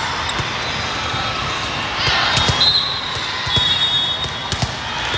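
Volleyballs being hit and bouncing in a large hall: several sharp smacks from about two seconds in and again near the end, over steady crowd chatter, with brief high whistle tones in between.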